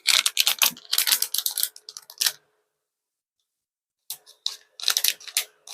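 Rapid crinkling and clicking of plastic packaging being handled. The sound drops out completely for about a second and a half midway, then picks up again.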